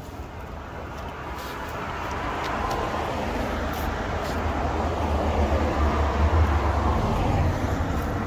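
A road vehicle driving past, its engine rumble and tyre noise growing louder over several seconds and strongest in the second half.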